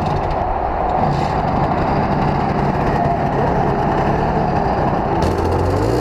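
Simson moped 50 cc single-cylinder two-stroke engines running steadily. Near the end one engine's pitch starts rising and falling as it is revved.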